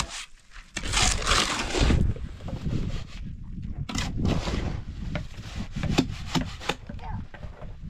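Irregular rough scraping and rubbing with scattered sharp knocks, as of manual work on wood or building materials.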